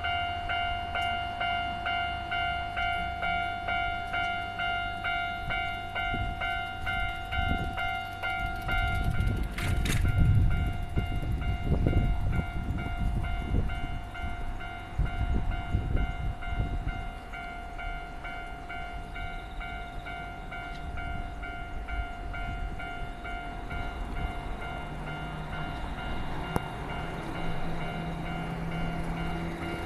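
Japanese level-crossing warning bell ringing in a steady repeating beat, a little under two dings a second. A Keio Line train rumbles and clatters over the crossing from about 9 to 17 seconds in, the loudest part, while the bell keeps ringing.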